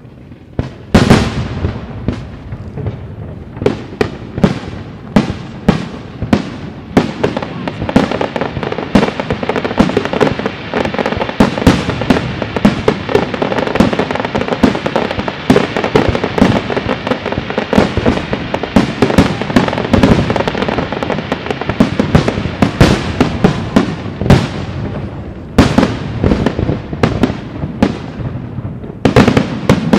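Aerial firework shells bursting in quick succession, many sharp bangs a second with crackling between them. It starts about a second in after a quiet moment, thins briefly near the end, then comes back as a heavy salvo.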